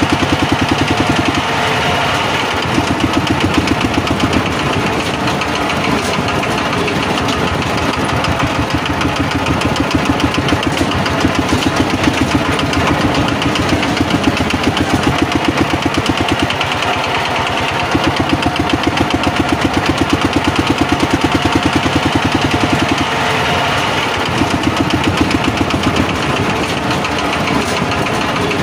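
Tractor engine running with a fast, even chugging rhythm, swelling and easing in loudness every few seconds.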